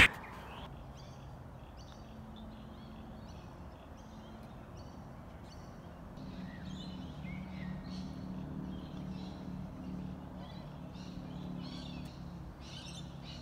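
Birds calling, many short high calls repeating over faint open-air background. A low steady hum comes in about six seconds in and fades near the end.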